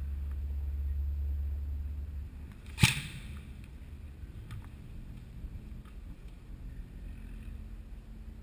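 An airsoft gun fires a single sharp shot about three seconds in, after a low rumble at the start. A few faint clicks follow.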